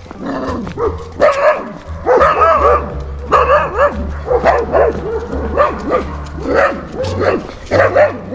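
A dog behind a fence barking rapidly and repeatedly, several barks a second, at a passing dog and walker.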